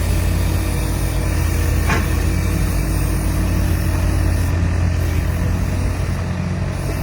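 Excavator's diesel engine running steadily with a heavy low rumble. A brief knock comes about two seconds in.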